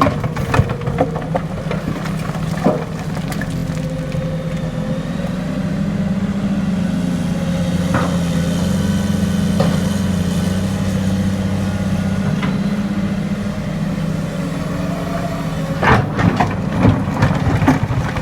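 Cat 330D hydraulic excavator's diesel engine running under working load, its pitch climbing slightly through the middle, with sharp cracks and snaps now and then and a cluster of them near the end.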